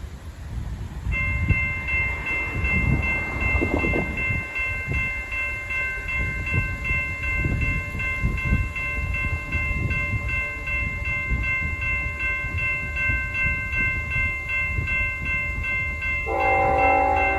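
Locomotive air horn on BNSF 7438, a GE Evolution-series (GEVO) unit, sounding one long steady chord as the train approaches; the uploader takes it to be a Nathan K5LLA five-chime horn, though with some doubt. Near the end the chord changes as lower notes come in.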